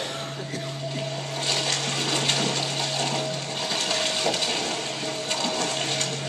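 Rushing, splashing water from a film soundtrack, the sound of the fishing net being cast and churning in the sea, played over the room's loudspeakers. A steady low hum runs underneath.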